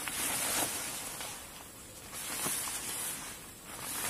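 A tarp rustling and crackling as it is shaken out and hung by hand, coming in uneven swells.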